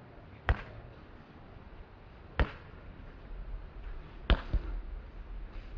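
Basketball bouncing on an outdoor hard court: sharp single bounces about two seconds apart, then a quick pair of bounces a little past four seconds in.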